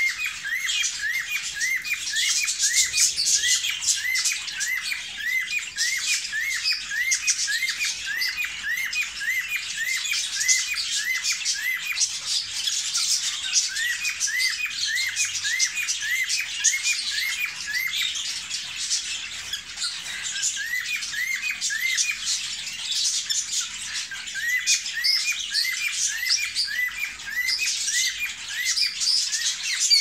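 White cockatiels in a cage calling: long runs of short rising whistled notes, about three a second, over a busy layer of higher chirps and squawks. The uploader describes it as whistling for a mate, in breeding condition.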